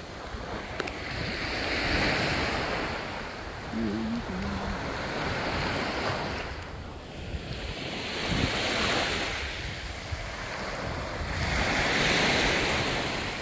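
Gulf of Mexico surf: small waves breaking and washing up the beach, the wash swelling and fading three times, with wind rumbling on the phone's microphone.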